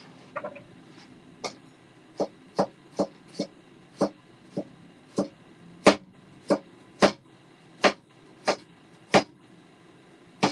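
Kitchen knife chopping vegetables on a cutting board: a series of about fifteen sharp knocks, roughly one every half second to one second.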